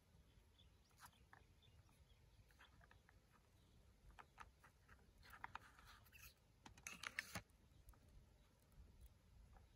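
Faint clicks and scrapes of small plastic toy watermelon slices being handled and pressed together over a plastic toy plate, with two short scratchy bursts in the middle.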